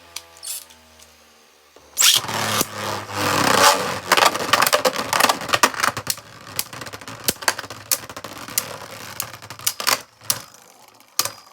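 Two Beyblade Burst tops, an Ultimate Valkyrie Legacy High Charge Dash combo and Union Achilles, launched with a sudden loud rip about two seconds in, then spinning in a plastic stadium with rapid clicking clashes. The hits thin out near the end as the tops slow.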